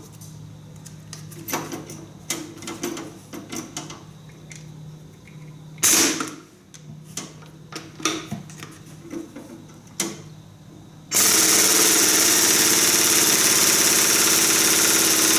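Scattered clicks and knocks of tools on metal, then about eleven seconds in an impact wrench hammers steadily on the PTO clutch bolt for about four seconds. The bolt does not come loose because it has a left-handed thread and is being turned the tightening way.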